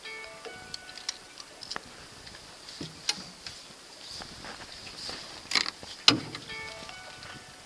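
Scattered light clicks and knocks as a hooked pike is handled and unhooked against the side of an aluminium boat, with two louder knocks a little past five and a half and six seconds in.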